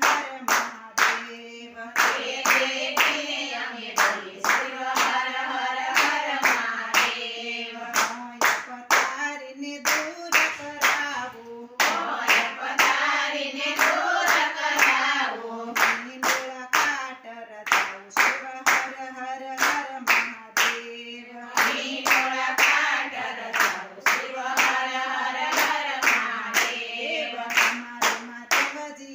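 A women's group singing a Gujarati devotional bhajan to Shiva in unison, everyone clapping hands on a steady, even beat.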